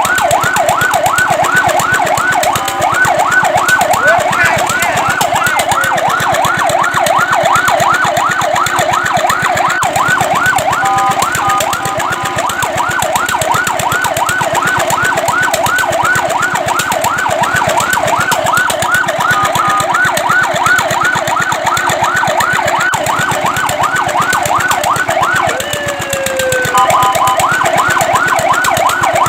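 Fire truck siren sounding in a fast yelp: rapid rising-and-falling sweeps, several a second, broken a few times by short steady tones.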